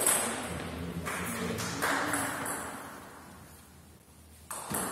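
Table tennis ball hits, a few sharp clicks in the first two seconds, then a short lull, with ball hits starting again near the end.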